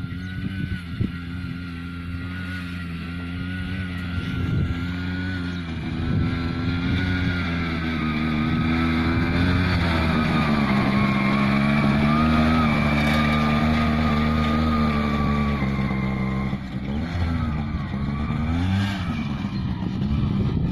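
Engine of a motorcycle-powered crop sprayer running as it drives along the field rows, growing louder as it comes closer. Its note sags and picks up again near the end.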